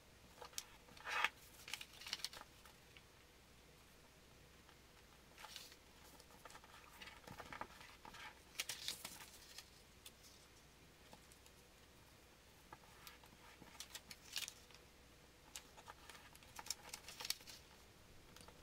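A sheet of paper being folded and creased by hand: faint, intermittent rustles and crinkles as the paper is pressed and smoothed flat, the strongest about a second in.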